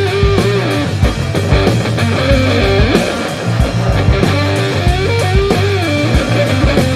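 Guitar-led music with bass and a steady drum beat; the lead line has bending, gliding notes.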